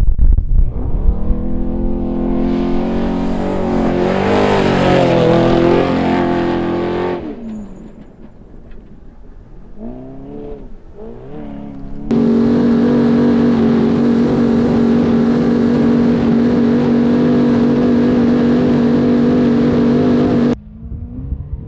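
Unlimited trophy truck engine at high revs passing on a dirt desert course, its pitch rising and bending as it goes by, then fading about seven seconds in. From about twelve seconds in, the engine is heard from inside the cab holding one steady, loud note for about eight seconds before it cuts off suddenly.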